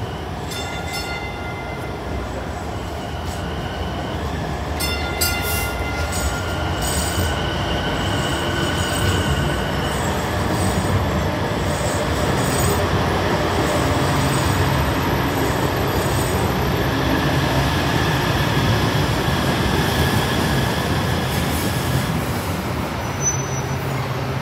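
MBTA Green Line Type 9 light-rail train running into an underground station platform. Its wheels squeal in several high tones through the first ten seconds or so, and the rolling rumble grows louder as the cars pass close by.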